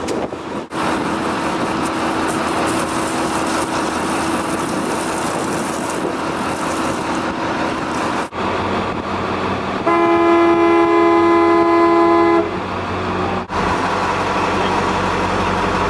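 A single horn blast of about two and a half seconds, a steady pitched tone with strong overtones, over the continuous rushing noise of a boat under way with wind on the microphone.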